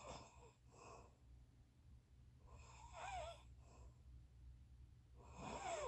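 A person snoring: three snores about every two and a half to three seconds, each carrying a wavering whistle-like pitch, with a fainter breath just after each one.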